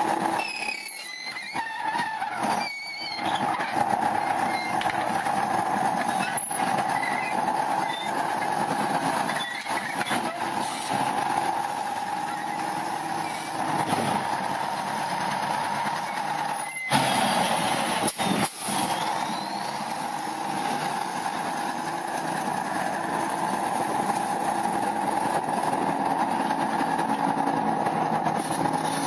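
Steady vehicle noise, engine and road, with a few short high squeals in the first seconds and an abrupt change about 17 seconds in.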